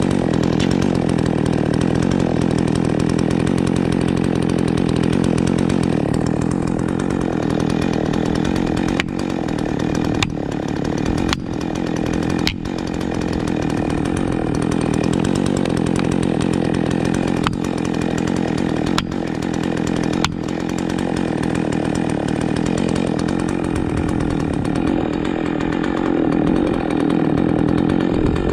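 Chainsaw running steadily while cutting into a large pine tree during felling. A handful of sharp knocks cut through it between about a third and two thirds of the way in.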